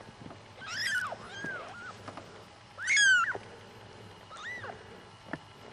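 Newborn kittens mewing: four short, high, thin calls, each rising and then falling in pitch, the loudest about three seconds in. A single sharp click near the end.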